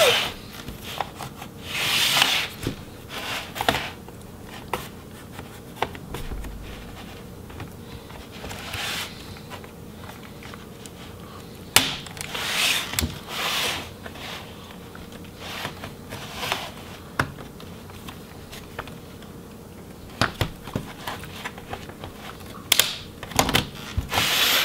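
Plastic bottom cover of a laptop being prised off by hand: intermittent scraping and rubbing of plastic on plastic, with occasional sharp clicks as the cover's clips pop free, one sharp click about halfway through and a cluster near the end.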